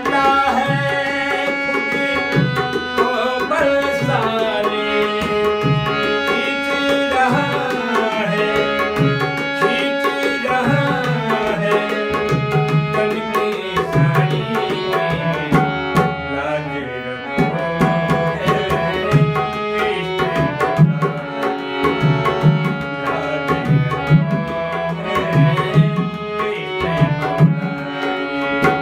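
Instrumental interlude of a Hindi devotional bhajan: tabla keeps a steady rhythm under a melodic instrument playing the tune, with some gliding notes.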